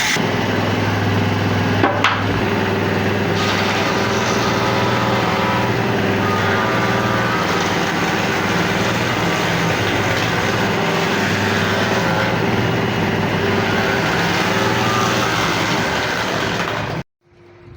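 Woodworking machine motor running steadily, cutting off abruptly about a second before the end.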